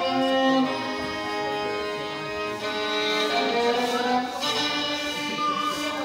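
Small amateur ensemble of recorders and a violin playing a slow melody together, the notes held and moving about once a second.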